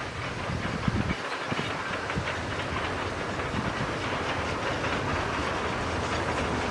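Oigawa Railway train drawing near, its wheels rattling on the rails with a steady hiss, growing louder.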